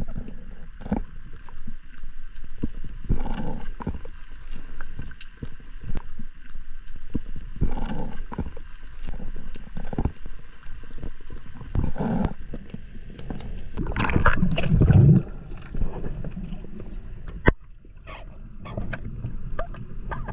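Muffled underwater sound heard through a camera housing during a freedive: water rushing and gurgling with irregular low thumps. The loudest part is a low rush about fourteen seconds in, followed a few seconds later by a single sharp click.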